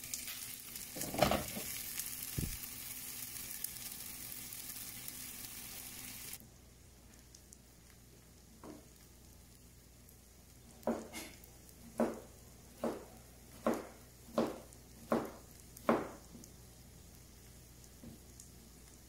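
Red onion and mushroom patties sizzling in stainless steel pans, with a clatter about a second in as the glass lid is handled. The sizzling cuts off abruptly after about six seconds; later a knife strikes a cutting board about eight times in quick succession, slicing a tomato.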